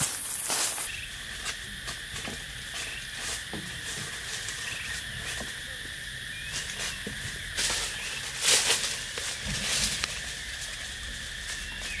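Rainforest insects buzzing and chirring steadily. Footsteps crunch in dry leaf litter at the start, and a few sharp clicks and rustles come past the middle.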